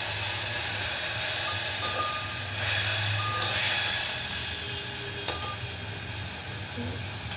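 Onions and whole spices frying in hot oil in an aluminium pot, sizzling after a spoonful of water, with a metal spoon stirring and scraping them. The sizzle slowly dies down toward the end.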